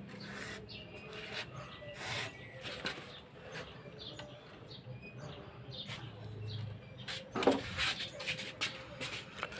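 Scattered light clicks and taps of metal engine parts and tools being handled while securing a motorcycle engine's cam chain during a top-end rebuild.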